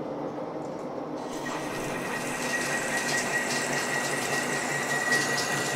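Old Monarch engine lathe running with its gears humming. About a second and a half in, a carbide LNMX insert bites into a 3.5-inch 1045 steel bar for a 0.300-inch-deep roughing pass under flood coolant, adding a steady high whine over a spreading hiss of cutting and splashing coolant.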